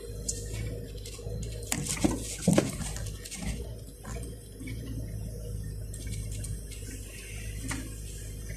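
Toyota Land Cruiser 76 driving over a rough, rutted dirt track, heard from inside the cab: a steady low engine drone with knocks and rattles from the bumps, the loudest a cluster of jolts about two seconds in.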